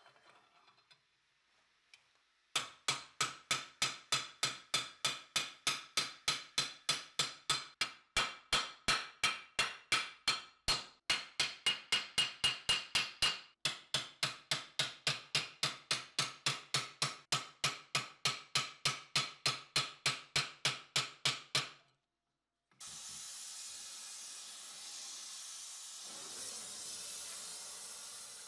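Hand hammer striking the rolled edge of a steel cuirass plate, about three blows a second, each with a metallic ring. It stops about 22 seconds in, and a gas torch flame hisses steadily after that.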